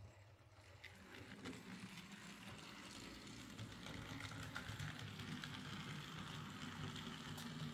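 Small electric motor and gear train of a Bachmann Ivatt 2MT OO gauge model tank locomotive running steadily along the track, a faint whirr with scattered light clicks, getting gradually louder over the first few seconds. Its worm and intermediate gears are freshly greased.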